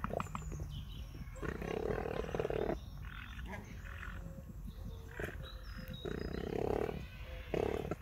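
Grey crowned cranes giving low, buzzing calls, each about a second long, three times.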